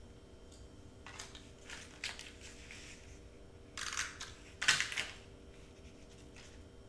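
Cardstock being handled and slid on a cutting mat, then two short strokes of a glue tape runner laying adhesive onto cardstock about four and five seconds in.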